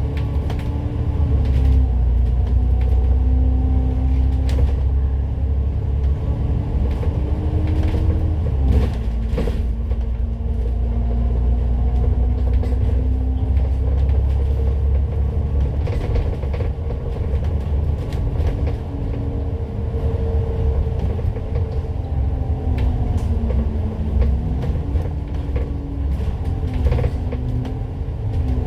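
Citybus double-decker bus running on the road: a steady low engine rumble with a drivetrain whine that rises in pitch as the bus picks up speed and falls as it slows, several times over, with occasional short rattles.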